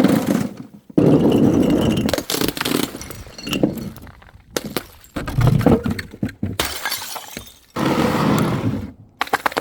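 Glass bottles smashing one after another, each break a sudden crash followed by clinking, scattering shards.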